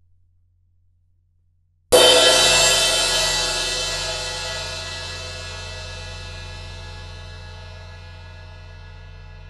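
Ride/crash cymbal struck once, loud, about two seconds in, then ringing on and slowly fading away.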